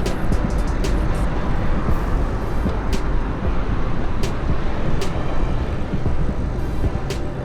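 Mountain bike riding at speed: wind and rolling noise rumble on the camera microphone, with irregular sharp clicks and rattles from the bike over the ground.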